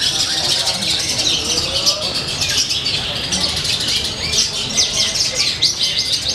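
Dense chorus of caged songbirds, long-tailed shrikes (cendet) among them, singing all at once in contest: a steady, unbroken stream of rapid high chirps and trills from many birds.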